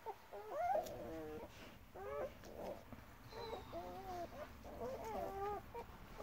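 One-week-old German Shepherd puppies squeaking while nursing: a string of short, high calls that rise and fall, one after another.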